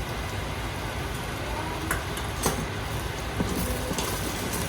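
Onion and spice masala sizzling steadily in oil in an Instant Pot, with a few light clicks of a spoon against the pot.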